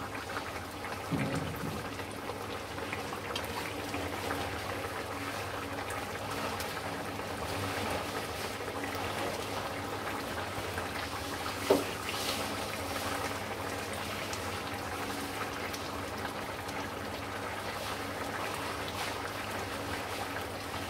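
Thin fish curry (hilsa jhol) bubbling at a simmer in a metal pot on a gas stove, over a steady low hum. One knock about a second in and a sharp clink near the middle.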